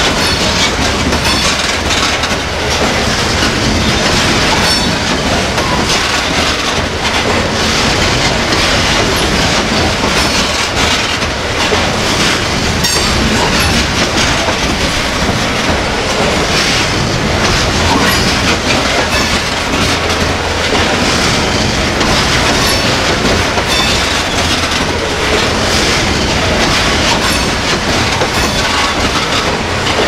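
Covered hopper grain cars of a freight train rolling past close by: a steady rumble of steel wheels on rail with rapid clicking over rail joints, and brief high wheel squeals now and then.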